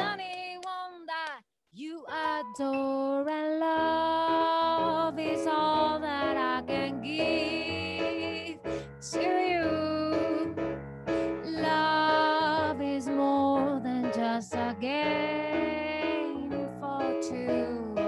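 A woman singing over stage piano accompaniment played on a Roland RD-700SX, with a short pause about a second and a half in.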